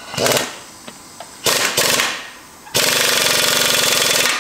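Air impact wrench hammering on the forcing screw of a ball joint press, pressing a ball joint out of a truck steering knuckle. Two short bursts, then a long steady run of rapid hammering from just under three seconds in.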